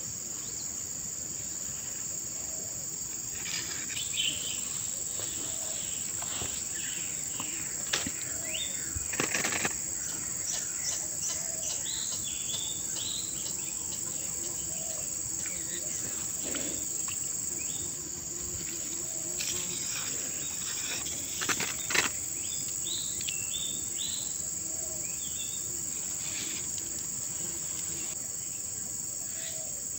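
Steady high-pitched insect drone, with scattered short chirps and a few sharp clicks, the loudest about 8 to 10 seconds in and again about 21 to 22 seconds in.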